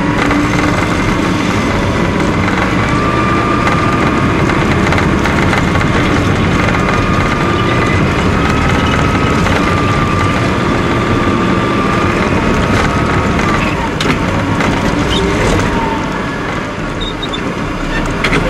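Caterpillar IT28 wheel loader's diesel engine running hard, heard inside the cab, with a steady whine over the engine rumble as the plow pushes snow; the engine eases off slightly near the end.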